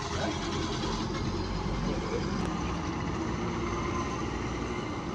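City bus's diesel engine running steadily as the bus pulls away across the yard.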